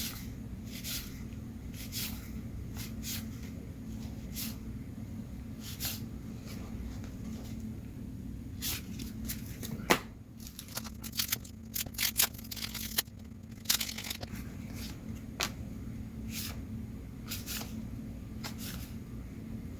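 Paper trading cards being flipped and slid off a stack one by one: irregular light flicks and rustles, with one sharper snap about halfway, over a steady low hum.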